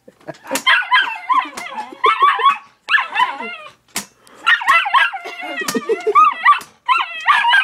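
Frightened dog yelping and whining in high, wavering cries, in several long bouts with short breaks between them.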